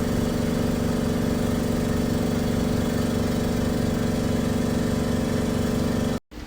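Air compressor of a hydrafacial machine's spray mist gun running steadily, a low motor hum with a hiss of spraying air and mist. It stops suddenly near the end.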